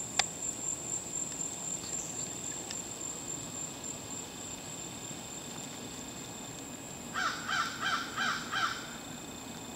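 A crow cawing about six times in quick succession near the end, over a steady high-pitched drone. There is one sharp click just after the start.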